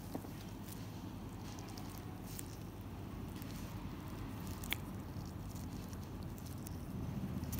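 Faint clicks and soft squishing from latex-gloved fingers and a metal comedone extractor pressing on skin, over a steady low hum. One sharper click comes a little under five seconds in.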